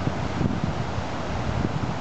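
Wind buffeting the microphone in uneven gusts, over a steady rush of water from flooded river rapids.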